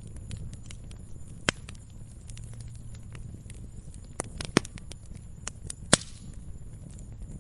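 Wood fire burning with a low steady rumble and irregular sharp crackles and pops, three louder pops at about one and a half, four and a half and six seconds in, the last followed by a short hiss.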